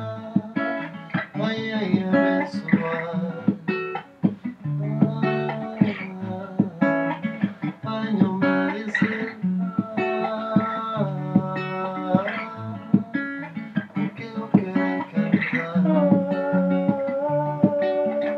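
Acoustic guitar being played by hand, with chords and picked notes ringing on in a steady flow.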